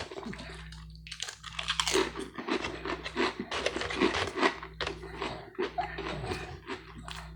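A person chewing food with frequent crisp, irregular crunches, starting about a second in.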